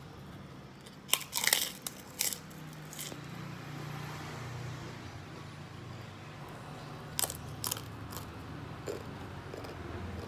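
Close-up eating sounds: a fried cracker crunching between the teeth as it is bitten and chewed, in sharp crisp bursts about a second in, again at two seconds, and a few more around seven to eight seconds in. A low steady hum underneath.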